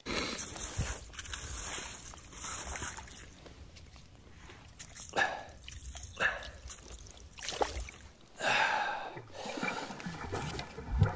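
Water and slush splashing and sloshing in an ice-fishing hole as a hand lowers crappies into it, with a few sharp knocks of handling along the way.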